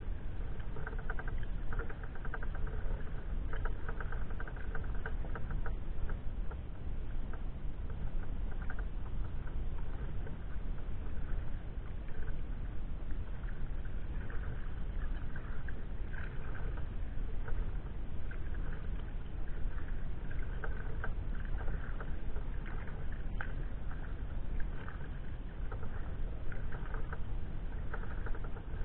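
Sea kayak being paddled: small water splashes and pattering from the paddle strokes and the hull, with occasional clicks, over a steady low rumble.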